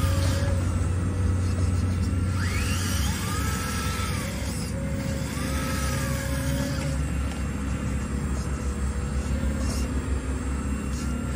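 Radio-controlled long-boom hydraulic excavator, a scale Cat 320, running its hydraulic pump with a steady low hum. A whine climbs, holds and falls back about three times as the boom and bucket are worked, with one quick rising sweep early on.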